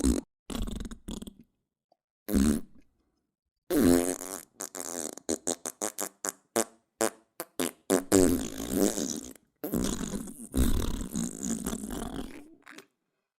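A string of fart sound effects, each cut off by clean silence: a few short farts, then a quick run of short sputtering pops, then two longer drawn-out farts near the end.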